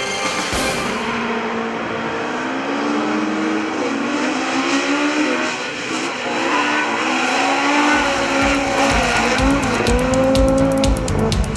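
Several Super 1600 rallycross cars racing through a bend, their engines revving up and down. The sound gets louder and deeper from about eight seconds in.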